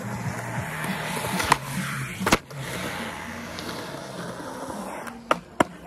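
Skateboard wheels rolling over concrete, broken by sharp clacks of the board hitting the ground: one about a second and a half in, another just after two seconds, and two quick ones close together near the end.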